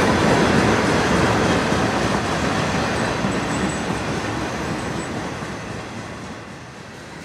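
Freight train running past, its steady rail rumble fading as it moves away.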